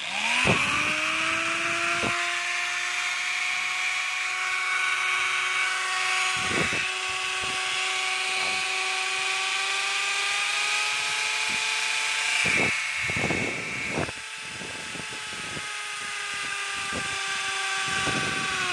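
A corded electric power tool's brushed motor is switched on and run for a test. It spins up with a rising whine, then runs steadily at speed, with several short clicks along the way.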